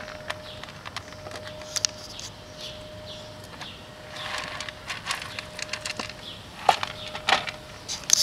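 A black kitten crunching dry cat kibble right at the microphone, with many small clicks. About halfway through, the clear plastic food tray is tipped and kibble scatters onto the asphalt. A few louder sharp clicks and knocks come near the end. A faint steady tone runs underneath.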